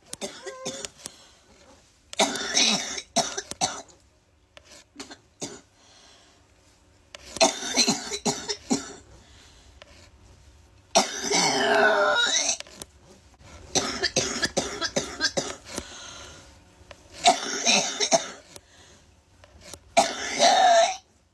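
Repeated bouts of human coughing: about six separate coughing fits, each lasting a second or two, a few seconds apart.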